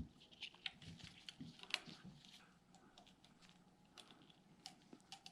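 Near silence, with faint, scattered small clicks and ticks of small brake master cylinder parts being handled and fitted.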